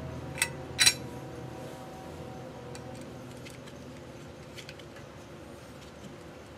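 Metal light-brace hardware being handled: two sharp metal clinks about half a second apart, the second louder, each ringing briefly, then a few faint small ticks.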